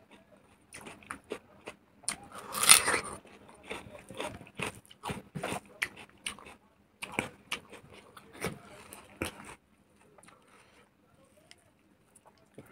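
Close-miked eating: a person chewing and crunching a mouthful of food with many sharp crunches and wet clicks, the loudest crunch about two and a half seconds in. The chewing stops about three seconds before the end.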